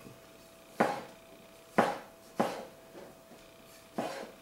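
Kitchen knife chopping cherry tomatoes on a cutting board: four sharp knocks of the blade striking the board, unevenly spaced.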